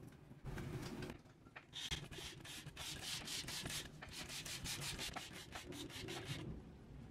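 Trigger spray bottle squirting liquid onto lettuce leaves in quick, evenly spaced hissy bursts, about four a second, starting about two seconds in and stopping near the end.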